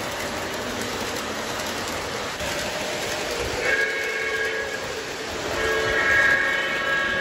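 Lionel O-gauge model trains rolling on three-rail track with a steady rumble. A steam locomotive's electronic sound-system whistle blows a chord twice: a blast of about a second about four seconds in, and a longer one near the end.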